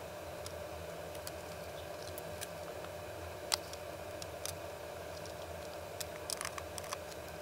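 Small plastic and metal airsoft gearbox parts clicking and tapping as they are handled on a workbench, over a steady low hum. One sharper click comes about halfway through, and a quick run of clicks near the end.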